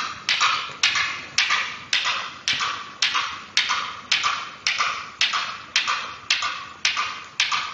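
Newton's cradle with metal balls clacking against each other in a steady rhythm, a sharp click a little under twice a second, each dying away quickly.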